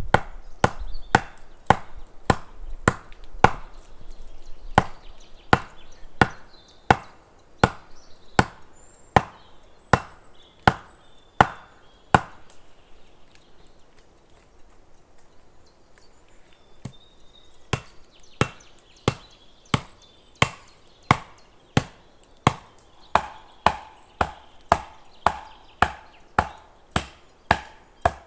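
Wood being chopped with a bladed tool: sharp, regular blows about one to two a second, stopping for about five seconds midway and then resuming slightly faster.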